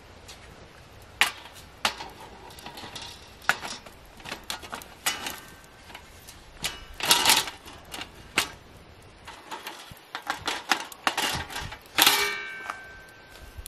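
Aluminium side rails being fitted onto the rim of an aluminium pop-up fire pit: a string of light metal clanks and clicks, the loudest near the end ringing briefly.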